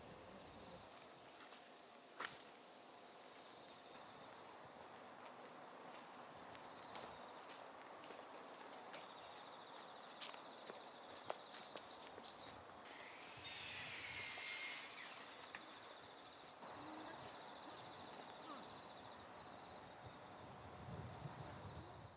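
Insects chirping in a steady, fast-pulsing high trill. About two-thirds of the way through comes a brief louder rustle, with a few faint knocks scattered through, and it all fades out at the end.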